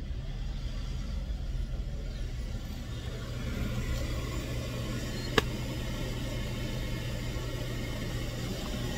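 Steady low rumble of a car's engine and road noise heard from inside the cabin, with a single sharp click a little over five seconds in.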